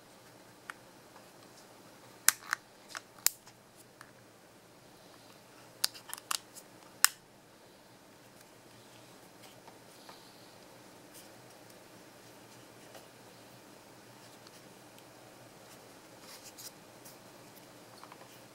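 Sharp plastic clicks and taps from handling a small action camera and opening the flap over its side ports. There is a cluster of clicks about two seconds in and another about six seconds in, then only faint handling noise, with a few soft clicks near the end.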